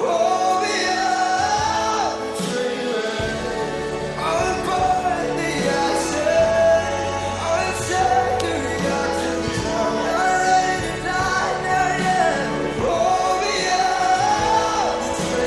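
A song with a lead vocal over a full band accompaniment, the dancers' routine music; a bass line comes in about three seconds in.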